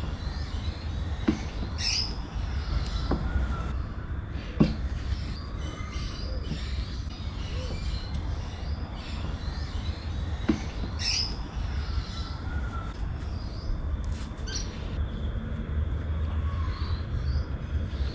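Chef's knife cutting a log of naan dough on a wooden cutting board, the blade knocking the board in a few sharp taps, the sharpest about four and a half seconds in. Birds chirp now and then over a steady low background rumble.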